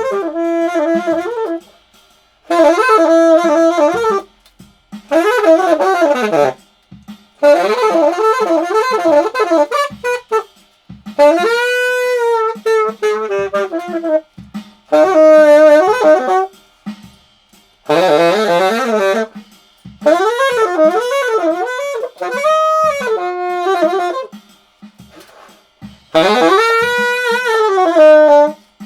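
Solo saxophone playing a jazzy melody in short phrases of a second or two, with brief breaths between them, in a bare garage with poor acoustics. A faint low beat keeps time underneath.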